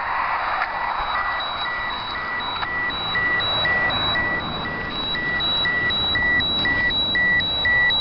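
High-pitched electronic beeping: short, even beeps repeating about twice a second at a steady pitch, over a steady rush of background noise.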